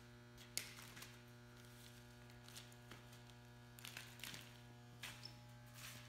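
Near silence with a steady low electrical mains hum, and a few faint clicks and rustles. The sharpest click comes about half a second in.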